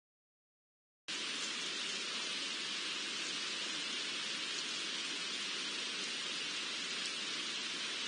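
Steady, even hiss of ambient noise picked up by a trail camera's microphone, cutting in abruptly about a second in and holding level with no distinct events.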